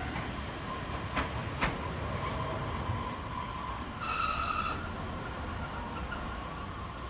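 Electric train running along the rails and drawing away, a steady rumble of wheels on track with two sharp clacks over rail joints a little over a second in and a thin steady squeal. A short high-pitched tone sounds about four seconds in.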